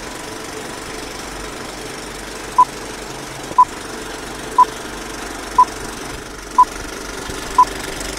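Old-film countdown leader sound effect: a steady film-projector whir with crackle, and a short high beep once a second, six beeps starting about two and a half seconds in.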